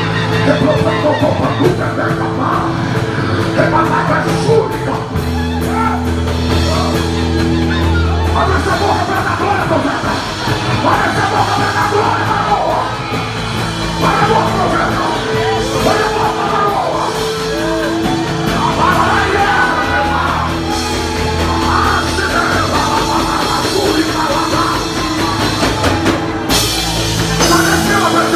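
Live church worship music: slow, sustained chords held over a deep bass note, changing every few seconds, with voices singing and calling out over it.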